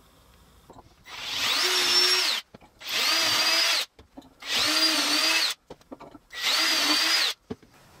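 Cordless drill boring 1/4-inch dowel holes through a doweling jig into wooden cross pieces: four short runs, each spinning up with a rising whine, holding steady while cutting, then winding down.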